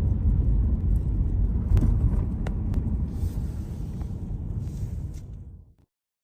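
A low, steady outdoor rumble that fades over its last couple of seconds and then cuts off abruptly to silence.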